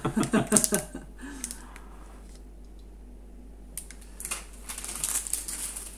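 Brief talk at the start. After a quiet gap, a run of quick crinkling and rustling clicks from a pin badge in a clear plastic bag being handled.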